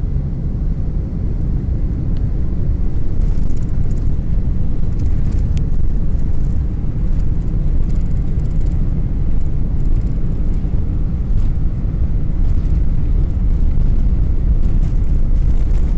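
Airliner cabin noise: a loud, steady low rumble of the jet engines heard from inside the cabin, swelling a little over the first few seconds and then holding steady.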